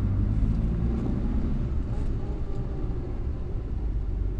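A 1962 Morris Minor's BMC A-series four-cylinder engine running steadily under way, heard from inside the cabin as a low rumble. The engine is not yet warmed up after a cold start and runs smoothly since a loose coil wire was fixed.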